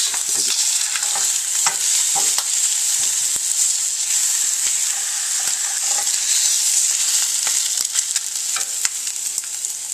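Eggs sizzling steadily in a hot stainless steel frying pan, a continuous hiss, with scattered light scrapes and taps of a silicone spatula against the pan as the eggs are lifted out.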